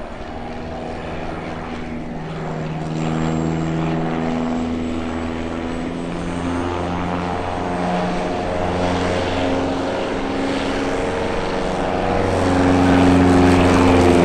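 Single-engine high-wing light plane's piston engine and propeller running, the pitch stepping up and down as the throttle is worked through low passes. It grows louder near the end as the plane comes close, then drops away sharply.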